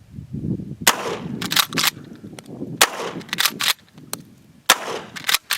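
Three 12-gauge shotgun blasts from a Winchester Model 1300 pump-action firing birdshot, about two seconds apart. Each shot is followed by a few short sharp clacks as the slide is racked to chamber the next shell.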